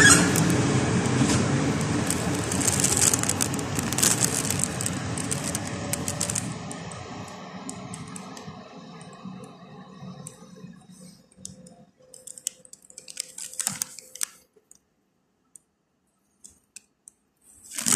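CFR passenger train's coaches rolling away on the rails, a rumble with clicking of the wheels over rail joints that fades steadily over about ten seconds to near silence. Faint scattered clicks follow, and there is a short burst of noise near the end.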